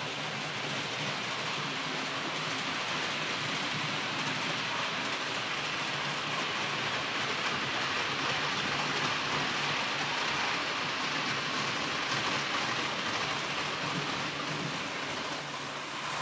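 H0-scale model train running on the layout's track: a steady rolling hiss of wheels on the rails, swelling slightly toward the middle.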